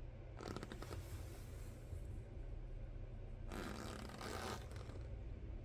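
Packaging being handled during an unboxing: two stretches of rustling and sliding, the first about half a second in and lasting about two seconds, the second shorter, about three and a half seconds in.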